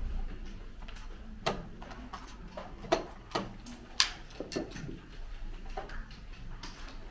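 Sharp clicks and taps from a draughts game in play: pieces being set down on the board and the chess clock being pressed. There are several separate clicks, the loudest about four seconds in.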